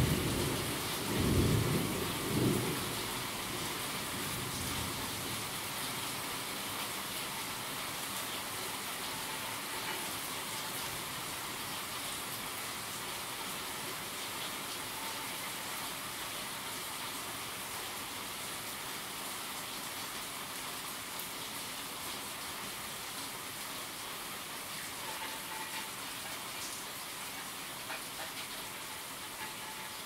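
Steady rain falling, with a low rumble of thunder dying away in the first two or three seconds.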